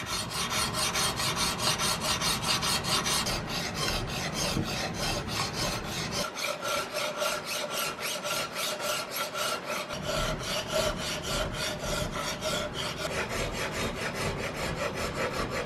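Flat file draw-filing a face of a steel octagonal muzzleloader rifle barrel: quick, even back-and-forth scraping strokes, about five a second, with a faint steady ring beneath them.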